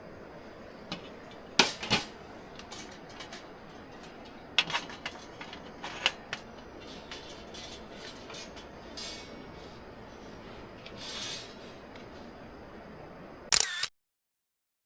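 Small wood fire of dry twigs crackling: scattered sharp pops over a steady hiss, then a cluster of louder pops before the sound cuts off abruptly near the end.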